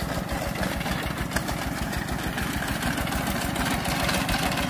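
Small 7-horsepower engine of a walk-behind grass-cutting machine running steadily with an even, rapid pulse while it mows grass.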